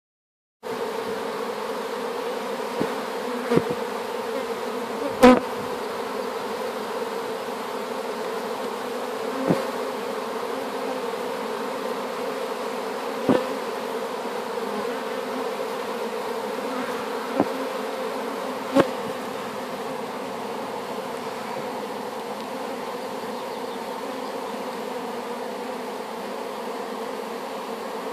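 Steady hum of many honeybees at the entrance of a hive holding a newly hived swarm. Now and then there is a short, sudden louder moment, about seven in all in the first twenty seconds, the loudest about five seconds in.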